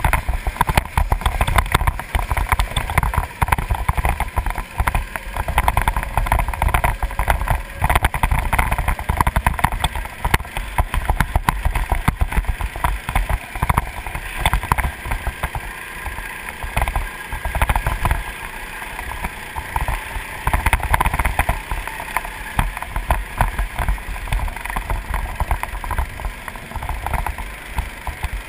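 Go-kart engine running hard on track, its pitch rising and falling as it revs out of and lifts into corners, under heavy wind buffeting and rumble on the onboard camera's microphone.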